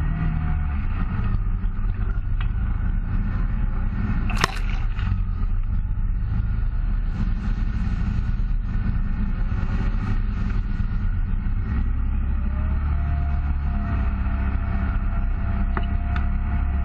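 Side-by-side UTV engine running as the machine drives along a rough dirt trail, with one sharp knock about four and a half seconds in. The low rumble grows stronger about twelve seconds in.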